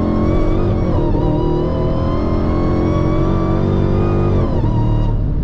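A Dodge Challenger Hellcat's supercharged 6.2-litre HEMI V8 at full throttle on a rolling pull from about 60 mph, heard from inside the cabin. The revs climb steadily, dip at a gear change about a second in, then fall about four and a half seconds in as the pull ends. It runs on a Direct Connection Stage 1 tune with track mode engaged.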